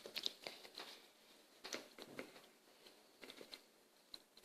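Faint, scattered small clicks and taps of a glue bottle being handled as glue is poured out.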